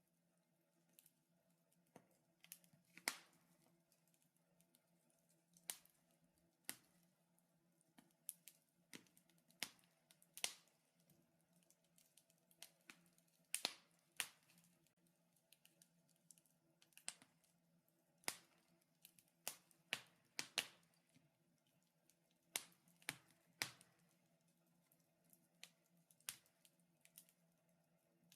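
Wood fire crackling: sparse, irregular sharp pops and snaps, some of them loud, with quiet gaps between and a faint steady hum underneath.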